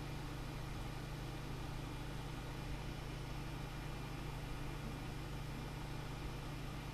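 Steady low hum with an even hiss and no distinct events: room tone.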